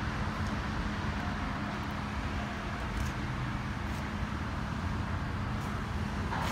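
Steady low rumble of road traffic noise with a constant low hum.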